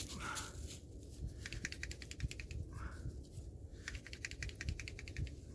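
Friction-fire hand drill, a dry plant-stalk spindle spun hard back and forth between the palms on a chaga mushroom hearth: a fast, continuous run of dry ticking and rubbing as the drill tip grinds into the fungus to build a coal.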